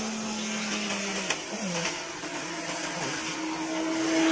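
Dump truck with its bed raised, tipping a load of gravel, with a steady rushing noise of gravel pouring out and the truck's engine running underneath. The engine note shifts about a second and a half in and holds higher after that.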